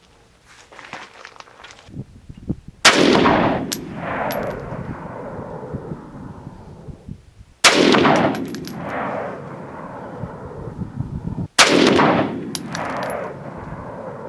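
Three rifle shots from a Saiga 308 semi-automatic rifle with a 20-inch barrel, firing Brown Bear .308 rounds about four to five seconds apart. Each shot is followed by a long rolling echo and a few faint clicks.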